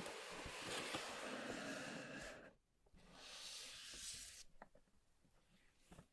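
Packaging being handled during an unboxing: a stretch of rubbing, rustling noise, then a shorter second one after a brief pause, followed by a few small ticks and knocks.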